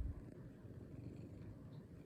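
Domestic cat purring, a faint steady low rumble, with a brief thump right at the start.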